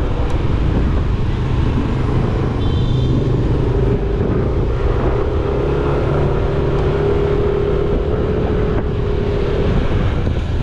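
A motor vehicle running steadily on the road: a continuous engine hum with road noise, and a steady tone that holds from about four seconds in until near the end.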